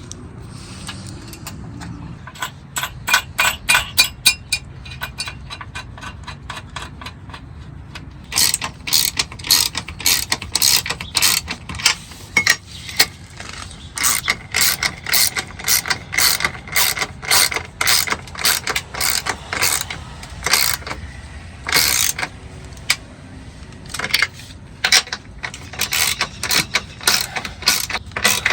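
Hand ratchet wrench clicking in quick runs as bolts on a running-board bracket are turned, with short pauses between runs.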